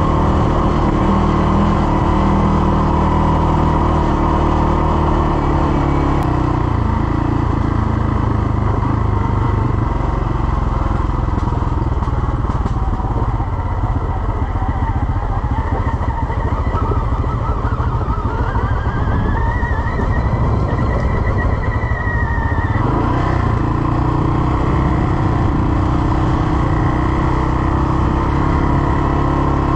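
CFMOTO CForce 600 ATV's single-cylinder engine running under way on a trail. The engine note is steady at first and shifts about a quarter of the way in. A whine rises in pitch past the middle, drops back a few seconds later, and then the steady note returns.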